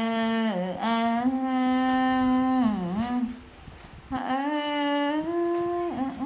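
A person humming in a few long held notes, each dipping in pitch at its end before the next begins.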